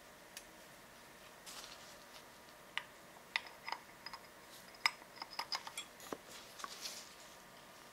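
Light clicks and taps of metal parts as a power steering pump is handled and turned over by hand, with a few soft rustles of gloves and cloth.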